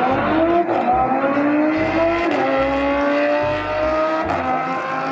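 A Lamborghini Huracán and a Ford Mustang accelerating hard down a drag strip: engine note rising steadily, dropping once at an upshift about two seconds in, then climbing again.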